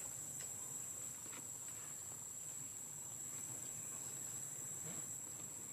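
Steady high-pitched insect drone, with a few faint short clicks or chirps over it.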